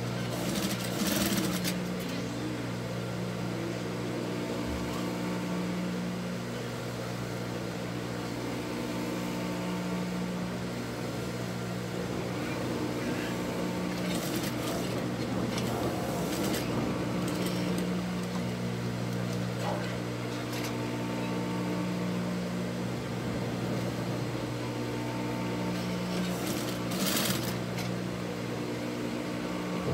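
Sewing machine running while stitching the edge of a quilted fabric pot holder: a steady motor hum, with a few short, louder stretches of stitching.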